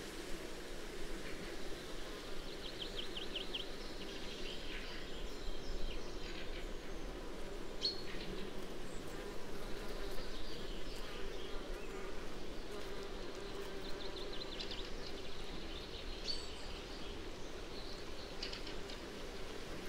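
Steady buzzing of flying insects such as flies or bees, with short high bird chirps scattered through it, including a quick run of chirps a few seconds in.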